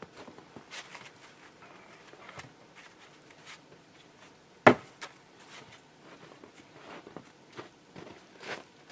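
Wooden boards being handled and set down: scattered light knocks and rustles, with one sharp clack about five seconds in.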